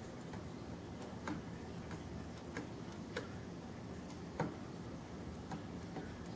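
Aquarium with a steady low hum and bubbling, likely from its air pump, broken by irregular sharp clicks about once a second. The strongest click comes about four seconds in.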